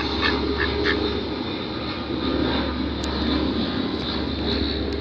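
White domestic ducks giving a few short quacks in the first second, over a steady low rumble that runs through the whole stretch.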